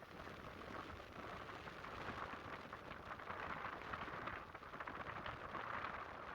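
Atlantic surf washing up the beach: a hiss full of fine crackle, like foam fizzing, that slowly grows louder.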